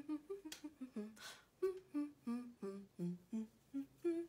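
A woman humming a tune with her lips closed, in short, bouncy notes that jump up and down in pitch, with quick breaths between phrases.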